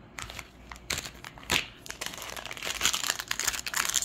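Plastic wrapper of a Topps baseball card pack crinkling as it is handled: a few scattered crackles at first, then dense, steady crinkling through the second half.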